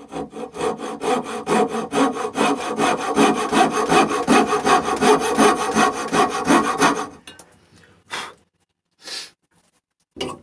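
Coping saw cutting through a birch rail in quick, rhythmic strokes, sawing out the waste of a notch for a lap joint. The sawing stops about seven seconds in, and two short separate sounds follow.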